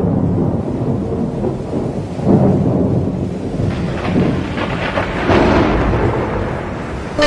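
Thunderstorm: rolling thunder swelling several times over steady rain, a storm effect laid in as the intro of a hip-hop track.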